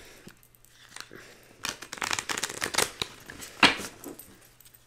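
A deck of cards being shuffled by hand: a quick run of dense card rustles and slaps for about two seconds, then one sharper tap.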